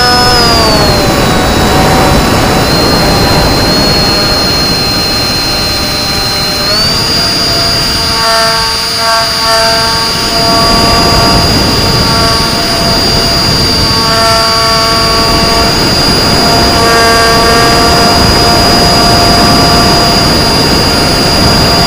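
Model flying wing's motor and propeller running in flight over loud rushing air noise. The pitch drops about a second in as the throttle comes back, then rises again about 7 s in and holds steady.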